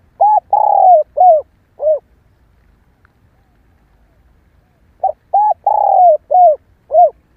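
Female spotted dove cooing: two phrases about five seconds apart, each a run of about five short arched coos with a longer coo in the middle.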